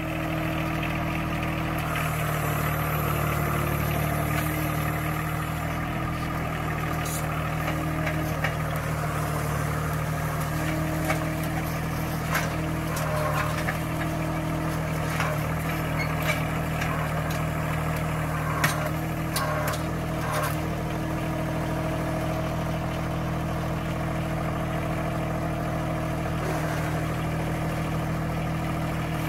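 John Deere 1023 compact tractor's three-cylinder diesel engine running steadily while its loader grapple pushes at a leaning dead tree, with scattered short knocks here and there.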